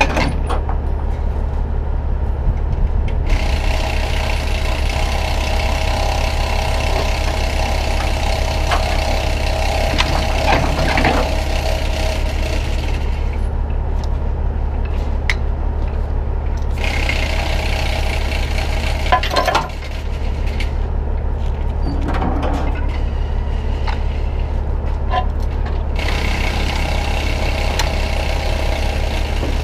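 Heavy-duty rotator wrecker's diesel engine idling steadily, with a higher hiss that comes and goes and a few sharp clinks of chain and hooks being handled on the boom.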